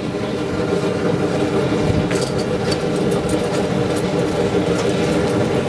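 Steady mechanical drone, like a motor running, with a few light metal clinks about two, two and a half, and four seconds in.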